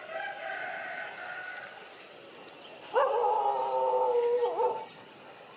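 Dogs in a mating tie, one giving long whining howls: a fainter drawn-out whine over the first two seconds, then a louder, steady howl of about two seconds from about three seconds in, dipping in pitch as it ends.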